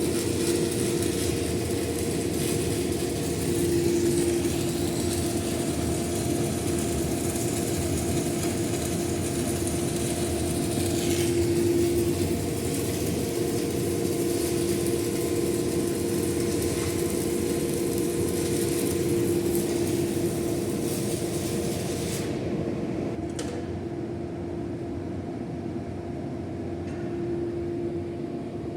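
Stick welding arc of a cellulose-coated E6010 electrode on a Kemppi K2 MMA 400 set to 80 amps with hot start off: a steady, harsh hiss over a constant hum. The arc breaks off about 22 seconds in, leaving only the hum.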